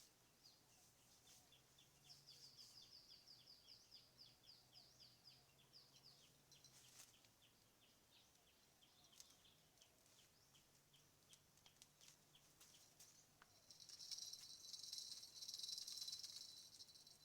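Faint outdoor ambience: a bird repeats a short high chirp about four times a second, fading after several seconds. Near the end an insect's high buzzing trill starts.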